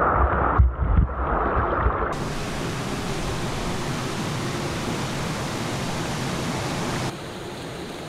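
Mountain stream water rushing over rocks, a steady hiss. For the first two seconds it is muffled, with low thumps. About two seconds in it comes in clear and full, and it drops somewhat in level about seven seconds in.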